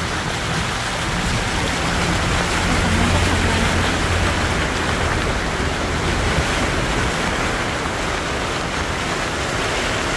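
Car driving through floodwater, heard from inside the cabin: a steady rush and splash of water against the car, loudest a few seconds in, with a low hum under it.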